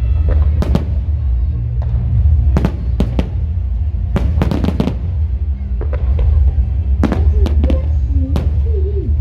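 Firecrackers and fireworks going off in irregular sharp bangs, some in quick clusters, over a steady low rumble.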